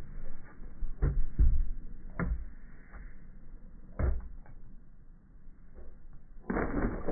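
Slowed-down, muffled audio from slow-motion footage in a car's back seat: a few dull thumps spread through it, then a louder, stretched-out low sound near the end.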